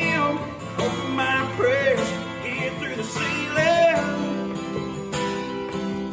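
Country band playing live, led by guitars: sustained chords underneath with a bending melodic line on top, between sung verses.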